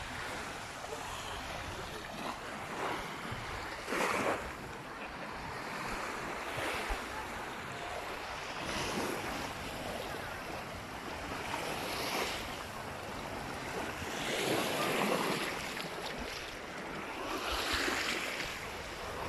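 Sea waves breaking and washing onto the shore, the surf swelling every few seconds.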